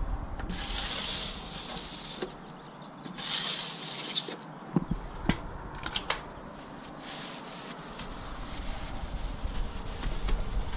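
Microfibre strip washer scrubbed across wet window glass: two long rubbing strokes in the first five seconds, then lighter rubbing with a few sharp knocks.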